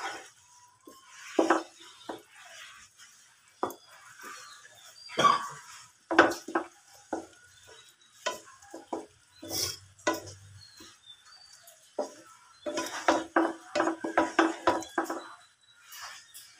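A spatula stirring a thick tomato and fish curry in a nonstick frying pan, making scattered knocks and scrapes against the pan. About three-quarters of the way in comes a quick run of strokes, about four a second.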